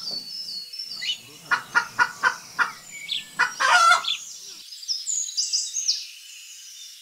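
Birds calling: a domestic fowl gives a run of short calls and then a longer, louder one, between about one and four seconds in. Small birds chirp high-pitched throughout and are clearest near the end.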